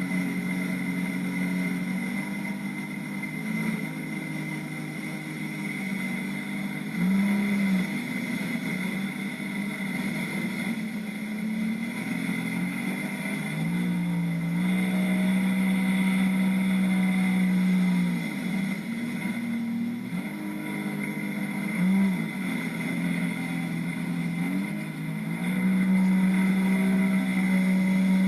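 Jet ski engine running at speed, its pitch rising and falling over and over as the throttle changes, with a steady high whine throughout.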